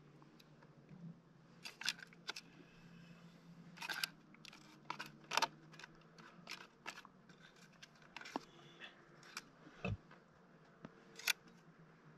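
Light, irregular clicks, crinkles and scrapes of hands handling food and its wrapping, over a faint steady low hum.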